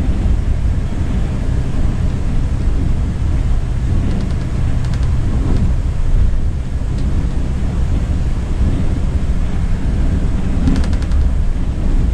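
Steady low drone of a Volvo B9R multi-axle coach's diesel engine with road noise, heard inside the cabin. A held engine tone runs through the first half, and faint rattling clicks come about four seconds in and again near the end.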